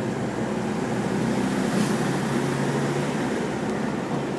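A car's engine and tyre noise heard from inside the cabin while driving along a town street, a steady hum whose pitch rises a little partway through. A short hiss comes about two seconds in.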